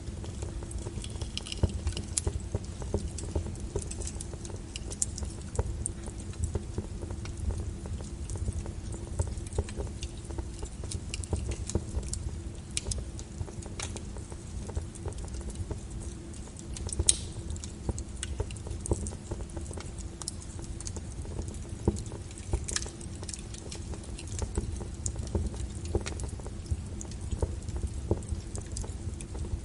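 Wood fire burning in a fireplace, with irregular crackles and snaps over a low steady rumble of the flames. A few pops stand out louder, about halfway through and again a few seconds later.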